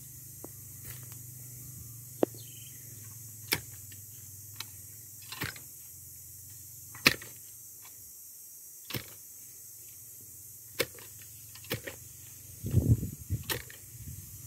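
Post-hole digger's blades driven again and again into dry, grassy soil to dig a planting hole: a sharp thud every one to two seconds, with a longer, louder crunch of earth about thirteen seconds in.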